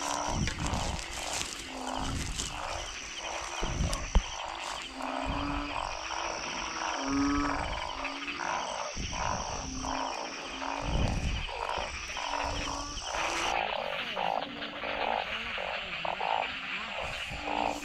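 Chorus of frogs calling, among them balloon frogs (narrow-mouthed frogs) in a breeding chorus: a dense layer of short repeated croaks, with short low notes about once a second. A single sharp click about four seconds in.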